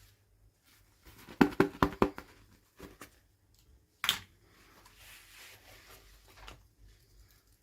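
Hands handling small plastic toys and packaging: a quick run of about six sharp plastic clicks, a single louder click a couple of seconds later, then soft rustling.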